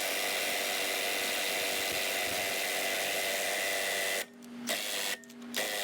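Impact wrench running steadily as it drives a stud installer to pull a new wheel stud into the hub. It stops briefly twice near the end. The wrench is too small for the job, so a bigger impact is fetched.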